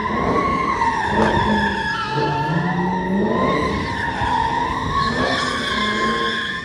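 Car tires squealing continuously in a wavering howl as a car drifts, with its engine revving underneath, the engine note rising and falling through the middle.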